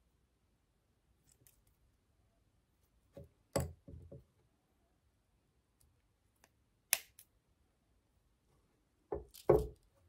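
Jewellery wire cutters snipping fine 0.5 mm (24-gauge) wire with one sharp click about seven seconds in, among a few short knocks of hand tools being handled on a tabletop, the loudest near the end.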